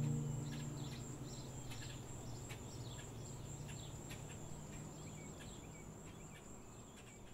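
Outdoor nature ambience: birds chirping in short falling calls, over a steady high insect drone. The whole bed fades out slowly, with a low note left from the music dying away underneath.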